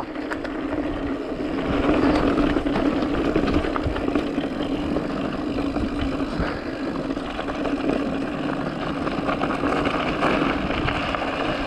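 Mountain bike rolling fast down a dirt trail: steady rolling and rattling ride noise with a constant low hum running under it.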